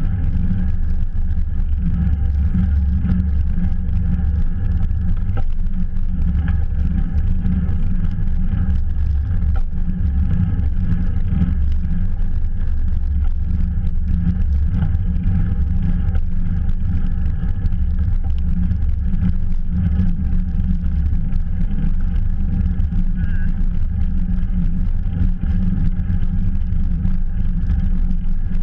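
Steady low rumble of wind buffeting and road noise from a bicycle riding at speed, picked up by a GoPro camera's microphone.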